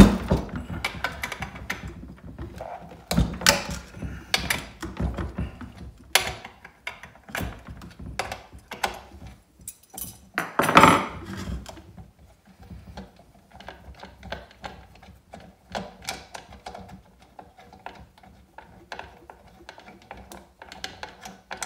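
Clicks, clanks and knocks of a scrench turning the clutch-cover nuts on a Stihl chainsaw, with the saw and the tool being handled on a workbench. The loudest knocks come at the very start and about eleven seconds in.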